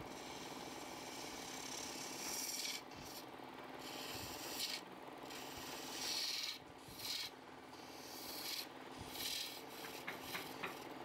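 Wood lathe running, with a turning tool worked against the spinning wood in repeated strokes: a rasping hiss that comes and goes over the steady hum of the machine, and a few light clicks near the end.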